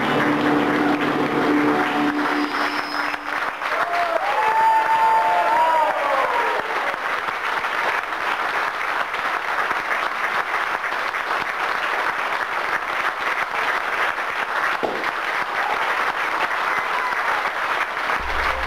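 Audience applauding steadily as the cast takes its curtain call. The last held notes of music fade out in the first few seconds, and a brief wavering call rises over the clapping about four seconds in.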